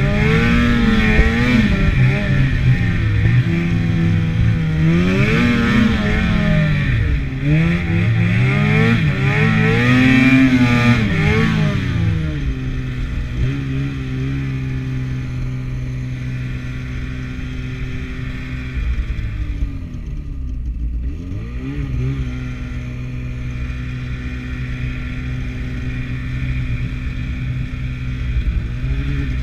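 Two-stroke snowmobile engine under way, revving up and down repeatedly as the throttle is worked over the first dozen seconds. It then runs at a fairly steady pitch, with a brief drop and pick-up about twenty seconds in.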